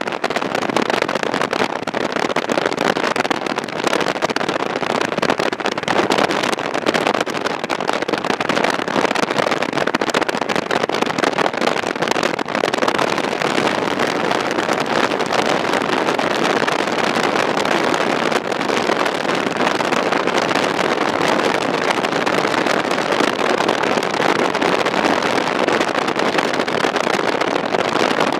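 Steady rush of tyre and wind noise from a car driving along a road, with no engine note or other event standing out.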